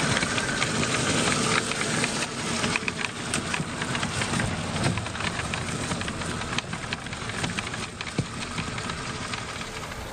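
Traxxas 6x6 radio-controlled truck driving through snow: its electric motor and drivetrain whir along with the crunch of tyres in snow and scattered clicks. The sound grows gradually fainter as the truck moves away.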